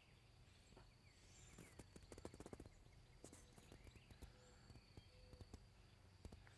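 Near silence: faint outdoor background with scattered soft clicks and crackles and a few faint chirps.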